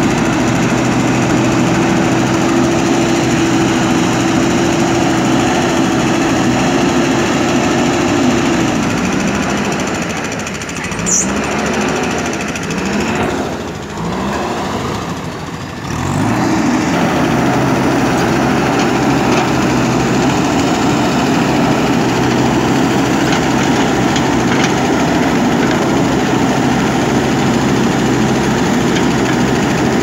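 JCB 3DX backhoe loader's diesel engine running at high revs while the backhoe digs. About eight seconds in the revs drop away and waver lower for several seconds, then climb back to full revs about sixteen seconds in.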